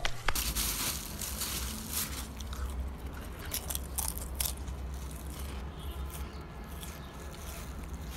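A person chewing a crunchy snack close to the microphone, with irregular crunches and crackles.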